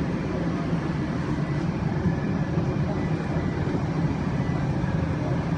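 Steady low drone of an airliner cabin, the constant hum of the aircraft heard from inside.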